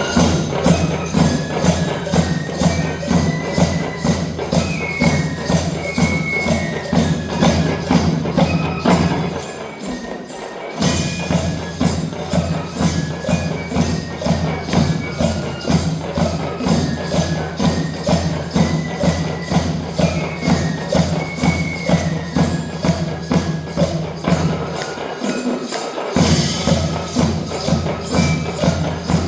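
A school drum band playing: a steady, driving percussion beat with a high melody line stepping over it. The low drums drop out briefly twice before coming back in.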